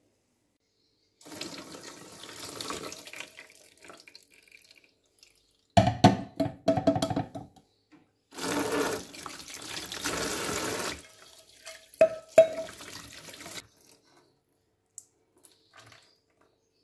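Water pouring and running as soaked quinoa is drained and rinsed in a fine mesh sieve. A cluster of sharp knocks comes about six seconds in, and two more about twelve seconds in.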